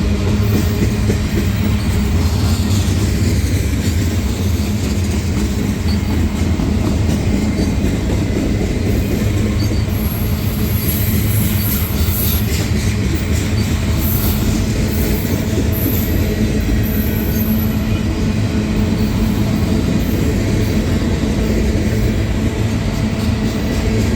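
Union Pacific freight train rolling past steadily, its wheels rumbling on the rails. High-pitched wheel squeal comes and goes from about ten to eighteen seconds in.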